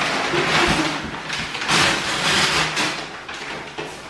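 Gift wrapping paper being torn and pulled off a wrapped toy kitchen in several ripping, crinkling pulls.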